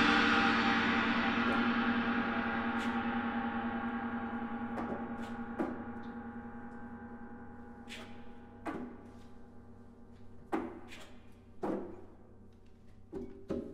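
A large gong ringing down after a heavy stroke, its many overlapping tones fading slowly and steadily. From about five seconds in, a scatter of short, light percussion strikes, each with a brief ring, sounds at irregular intervals over it.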